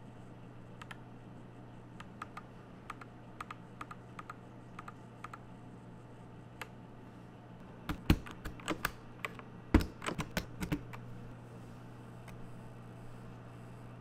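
Keystrokes on a YUNZII YZ75 mechanical keyboard with Gateron Yellow switches: single, spaced-out key clacks at first. About eight seconds in comes a louder flurry of clacks and knocks as keycaps are pulled off the switches.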